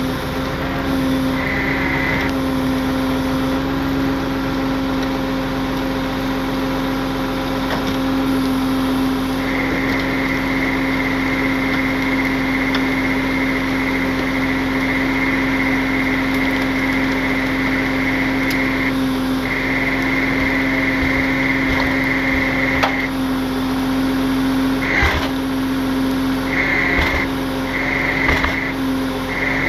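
Tow truck engine running steadily while its winch pulls a car out of a ditch, with a high whine that cuts in and out as the winch is worked: long pulls in the middle, short bursts near the end. A few sharp knocks near the end.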